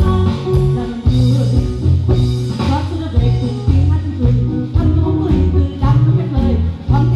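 Live band playing a Vietnamese pop song: a steady bass line and beat with saxophone, and a woman singing into a microphone over it.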